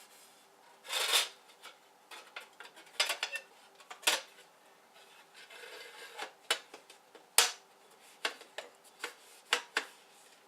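Glass panes and metal frame of an old outdoor light fixture being handled and cleaned: scattered light clinks and knocks with a short scrape about a second in.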